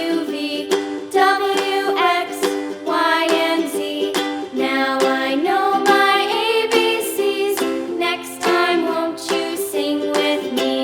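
Background music: a light tune of strummed, plucked strings with a melody line.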